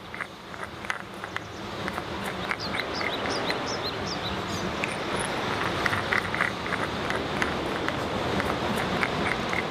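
Woodland ambience: small birds chirping over and over above a steady rush of noise that slowly grows louder.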